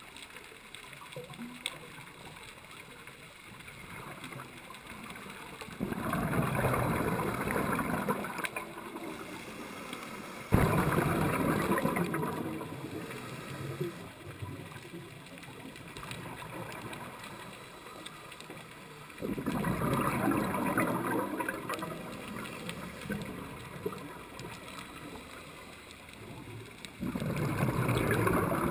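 Scuba diver's regulator: four bursts of exhaled bubbles rushing and gurgling, each lasting two to three seconds and starting abruptly, with a quieter underwater hiss between breaths.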